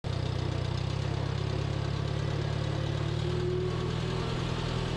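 IH Cub tractor's four-cylinder engine running steadily at idle.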